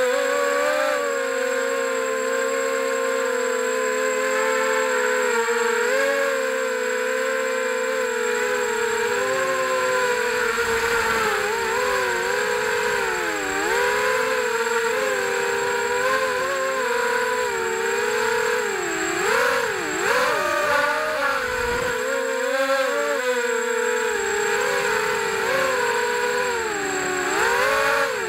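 FPV quadcopter's brushless motors and propellers whining in flight, heard from its onboard camera, the pitch sliding up and down with the throttle and wobbling quickly about twenty seconds in.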